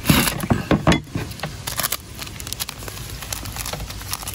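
Cleaver chopping chilies on a thick wooden chopping board: a handful of quick knocks in the first second, then quieter scattered ticking and crackling.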